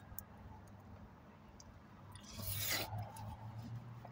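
Drinking soup straight from a tin can: quiet sipping, then a short loud breathy rush of air about two and a half seconds in.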